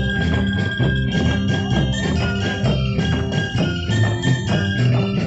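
Rampak gendang ensemble: several gendang hand drums beaten together in a fast, steady rhythm, with a ringing melodic line over them.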